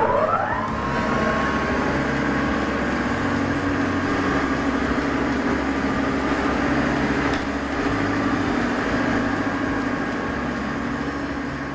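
Electric motor of a 2 hp column drill spinning up, its whine rising in pitch and settling within the first second, then running steadily with a constant hum and whine. A single sharp click comes about seven seconds in.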